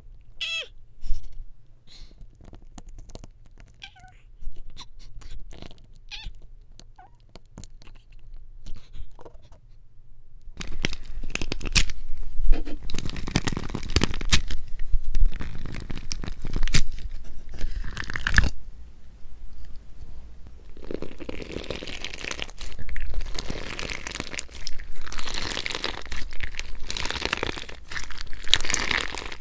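Clear slime filled with small clear cube-shaped bits being handled: at first, fingers poking and pressing it in its tub give scattered small clicks and wet pops; from about ten seconds in, squeezing and kneading it between the hands gives a dense, continuous crunching and crackling.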